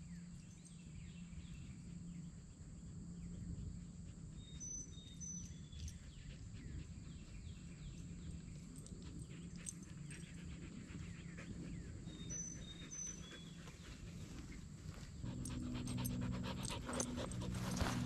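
Australian shepherd panting steadily on a walk, under faint footsteps. Short high two-note chirps come twice, and a low steady hum comes in near the end.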